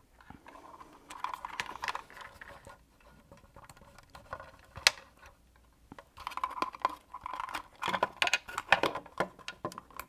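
Small plastic wiring plugs and a plastic hinge cover being handled and the plugs pushed together: light clicks and rustles, with one sharp click about five seconds in and busier clicking and scraping from about six seconds on.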